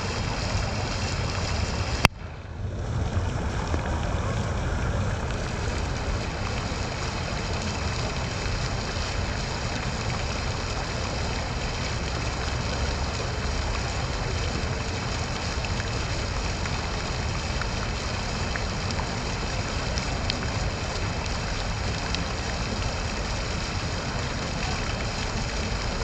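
Fountain water splashing steadily into a stone basin, a continuous rushing with a low hum underneath. A single sharp click about two seconds in, after which the sound briefly dips and then comes back.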